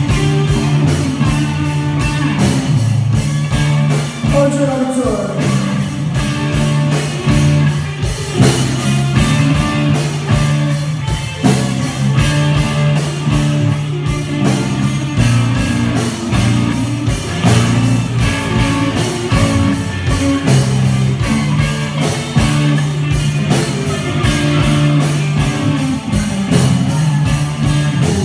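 Live rock band playing: an electric guitar riff over a steady drum beat.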